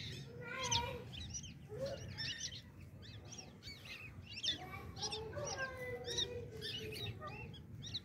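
Teetar (francolin) chicks peeping: many short, high chirps in quick succession, with a few lower, longer calls mixed in around the middle.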